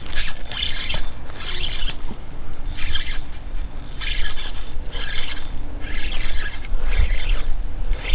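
Fishing reel being cranked to bring in a hooked bass, its gears whirring in repeated spells of about a second each with short pauses between turns.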